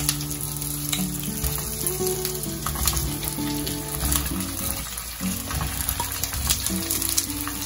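Hot oil tempering of mustard and cumin seeds, sesame, bay leaf, dried red chillies and curry leaves sizzling in a kadhai as steamed beetroot-leaf muthiya pieces are dropped in by hand, with small clicks as pieces land. Soft background music with held notes plays underneath.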